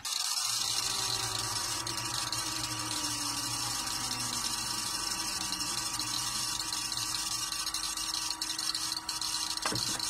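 Vytronix CYL01 bagless cyclonic cylinder vacuum cleaner running steadily while vacuuming carpet: an even motor hum with a rushing hiss of air. It starts abruptly.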